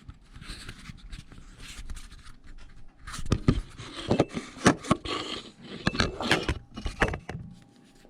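Scraping, then a run of sharp clicks and knocks of small hard objects being handled, starting about three seconds in.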